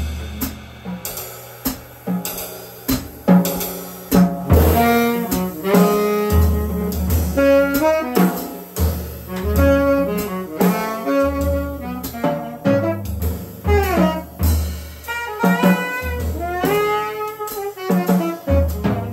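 Live jazz duo of saxophone and drum kit: the saxophone plays quick, broken runs of notes up and down over busy drumming, with bass drum and tom hits and cymbals. The playing grows louder and busier after the first few seconds.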